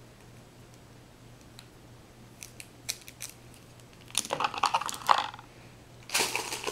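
Small plastic cosmetic items and packaging being handled in a box: a few light clicks, then two spells of rustling and clattering about four and six seconds in.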